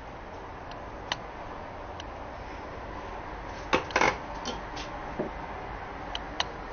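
Hard plastic clicks and knocks as a hand blender's chopper bowl, lid and motor unit are handled and set down on a kitchen worktop, with a sharp cluster of knocks about four seconds in and a few single clicks around it. The motor is not running.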